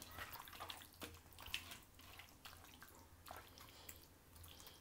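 Chicken in a thick yogurt marinade being mixed in a stainless steel bowl: faint, irregular wet squelches and scrapes with a few soft clicks.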